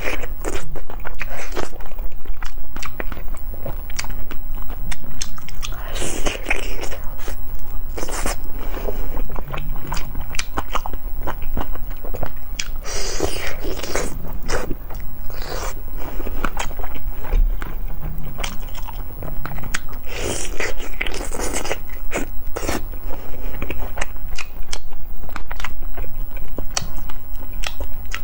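Close-miked eating of cola chicken wings: chewing and biting with crackling mouth sounds, growing louder for a few stretches every six or seven seconds.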